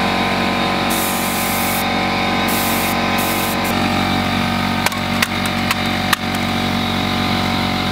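A steady mechanical whine of many tones, broken by two hissing air blasts from a compressor blow gun driving a fidget spinner at high speed. In the second half come about four sharp clicks as the spinning spinner strikes a plastic toy car.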